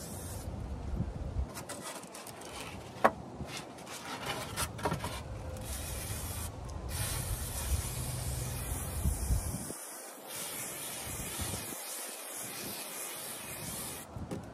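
Aerosol adhesive spray hissing in long spurts as it is sprayed onto foam board insulation. A few sharp knocks come in the first half, the loudest about three seconds in.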